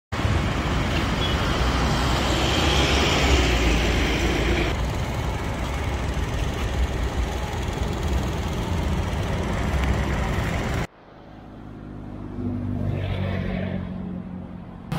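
Loud street traffic noise, a dense rumble of passing vehicles, that cuts off abruptly about eleven seconds in. After it comes quieter traffic with a low engine hum.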